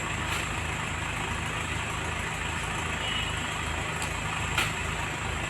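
A steady low engine hum, like a motor idling, with a couple of faint clicks.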